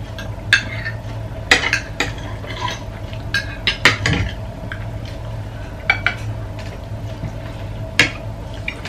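Metal spoons and forks clinking and scraping on ceramic plates as people eat, in scattered sharp clinks with a cluster around the middle, over a steady low hum.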